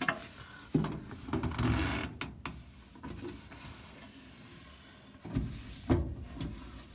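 A cloth wiping and rubbing the inside of a microwave oven, in two spells with a few sharp knocks against the oven.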